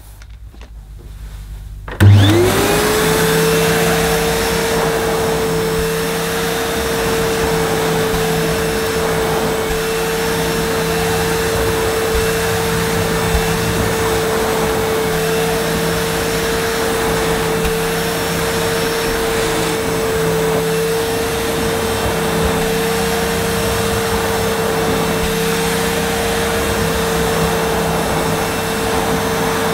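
Hitachi CV-790 Powerhouse bagless vacuum cleaner switched on about two seconds in. Its motor spins up quickly to a steady whine and runs on evenly under a rush of suction noise.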